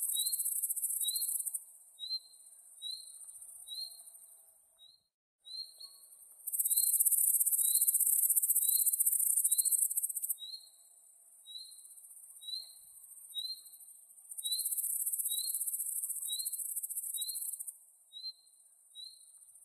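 Crickets chirping: a steady run of short, high chirps about one and a half a second, over a shrill insect buzz that swells loud three times for a few seconds each and then falls back.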